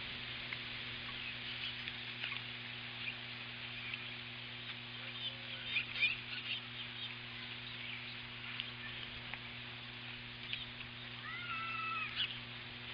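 Outdoor nest-camera microphone ambience: a steady hiss over a low steady hum, with a cluster of small clicks and ticks about six seconds in. One short bird call comes about a second before the end.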